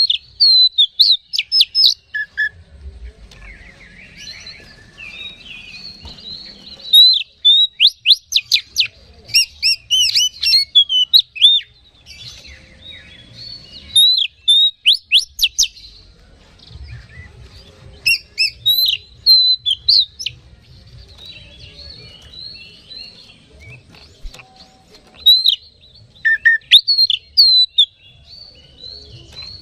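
Oriental magpie-robin singing a vigorous, fighting-style song: loud bursts of rapid, high whistled and scratchy phrases every few seconds, with softer chattering in between.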